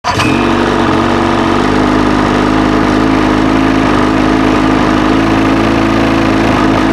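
A vehicle's engine idling at a steady pitch, running loud and unchanging throughout.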